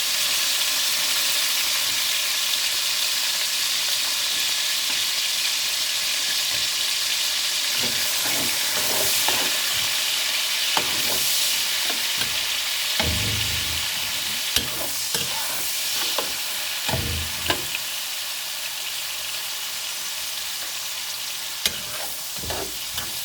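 Chopped onions and garlic sizzling in hot bacon fat and oil in a pot, a steady frying hiss. From about eight seconds in, the pan is stirred, with scattered knocks and scraping of the utensil against the pot.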